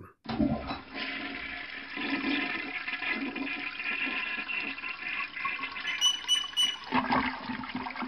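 Toilet flushing: a steady rush of water for about seven seconds, tailing off near the end.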